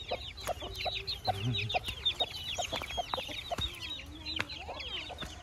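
Chickens clucking with short repeated calls, over a busy chorus of high, quick chirps.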